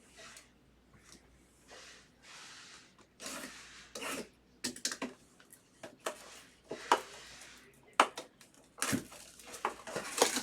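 Rustling and crinkling of trading-card packaging being handled, broken by a number of sharp clicks and taps.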